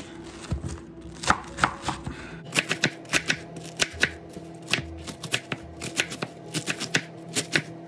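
Knife chopping through a head of cabbage onto a wooden cutting board: a run of crisp, unevenly spaced knocks, about three a second.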